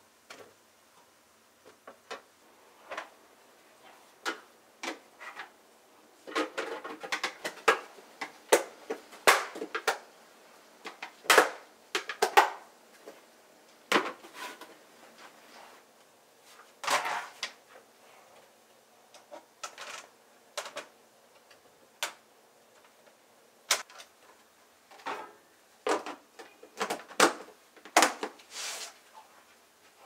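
Scattered light taps, knocks and clatter of vegetables and clear plastic food containers being handled on a kitchen counter. The sounds come in irregular clusters, busiest in the middle stretch and again near the end.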